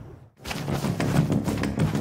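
A brief drop to near silence, then dramatic documentary score comes in about half a second in: rapid percussive hits over a low, dense bed.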